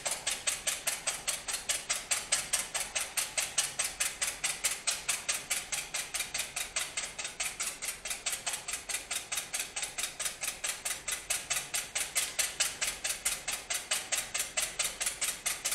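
Wire hand whisk beating egg whites in a glass bowl, its wires ticking against the glass in a fast, steady rhythm of about five strokes a second as the whites are whisked toward soft peaks.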